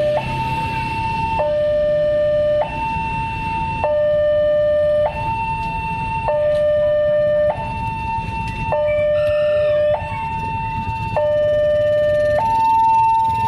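Railway level-crossing warning alarm sounding its two-tone electronic signal, a higher and a lower tone taking turns about every second, warning that a train is approaching while the boom barriers come down. A low rumble of waiting motorcycle and car traffic runs underneath.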